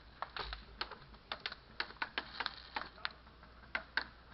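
A quick, irregular series of sharp clicks and ticks, about three or four a second, over faint background noise.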